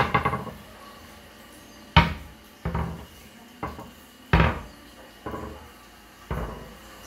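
Wooden kitchen cabinet doors being pushed shut one after another: about seven sharp wooden knocks, roughly a second apart, the first with a brief rattle.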